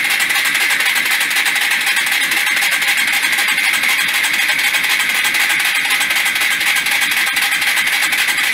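A 1996 Yamaha SR125's single-cylinder four-stroke engine turned over steadily on its starter with the spark plug lead off, so it cranks without firing, in a continuous whirring rattle. It is being spun to build oil pressure and push fresh oil up to the top end after the engine was run short of oil.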